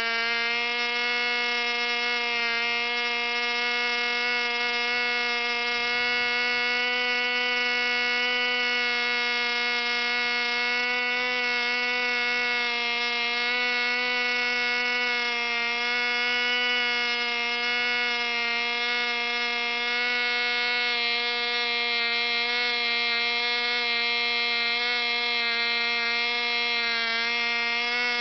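Picco 12 Turbo two-stroke glow (nitro) model engine, an ABC 3-port with a Turbo plug head, running at high revs on a test stand: a steady, high-pitched buzz that holds one pitch throughout.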